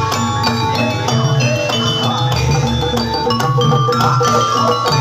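Javanese gamelan music for a jathilan horse dance: bronze keyed and kettle instruments struck in quick repeating patterns over a steady, regular drum beat.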